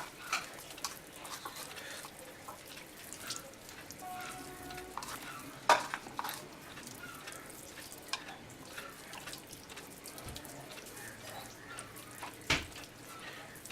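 Chicken leg pieces being mixed in a bowl with a wet marinade of ginger-garlic paste, lemon juice and chilli: soft, wet, squishy rubbing, with two sharp knocks, one about six seconds in and one near the end.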